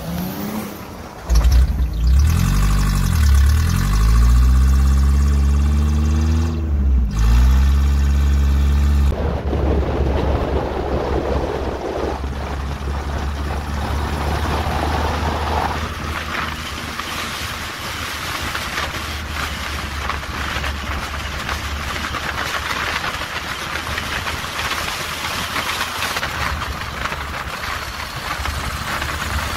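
Audi S4 B5's twin-turbo V6 revving up and down in repeated rising and falling surges as the car drifts in circles on snow. About nine seconds in this gives way to steady engine and road noise heard from inside a car driving on a snowy road.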